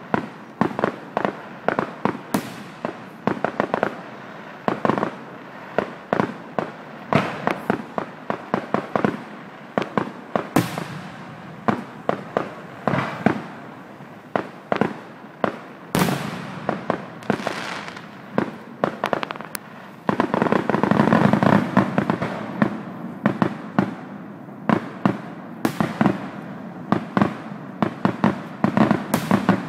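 Aerial fireworks display with shells bursting in quick succession, several sharp bangs a second, and a louder, denser barrage about two-thirds of the way through.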